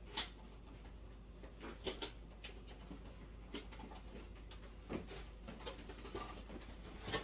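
Faint, scattered clicks, taps and rustles of kitchen items being handled, with a sharper click just after the start.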